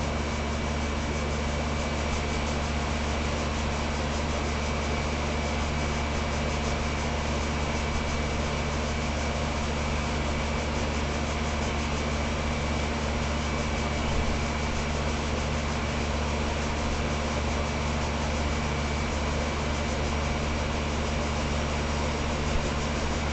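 Lennox central air conditioner's outdoor condensing unit running at full output, its compressor humming steadily under the fan's airflow, with a faint steady high whine. It is a 20-year-old unit still on its original compressor and fan motor and running normally.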